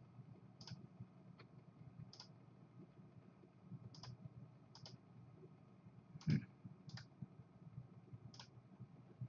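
Computer mouse clicking: single clicks spaced irregularly about a second apart, faint, with one louder click and a thump about six seconds in.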